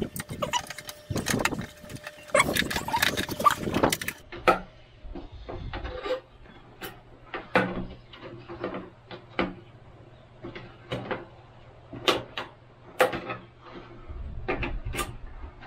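Clattering and rustling as the plastic keypad adapter plate is handled. Then come scattered clicks and scrapes of a screwdriver working at the plastic housing of a soft starter, over a faint steady low hum.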